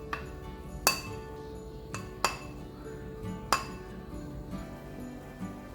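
Background music with held notes, over about five sharp, irregularly spaced clinks of tableware, each with a brief ring.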